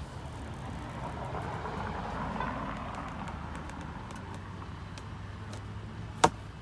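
Golf cart driving along: steady motor, tyre and wind noise with a low steady hum. A single sharp click near the end as the fold-down windshield is unlatched.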